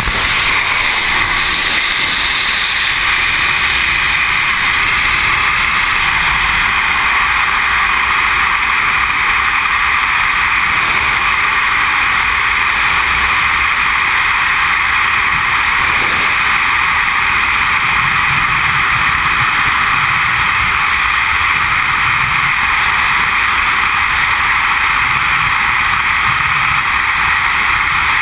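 Freefall wind noise: a loud, steady rush of air blasting over a helmet- or body-mounted GoPro camera as a skydiver falls belly-to-earth.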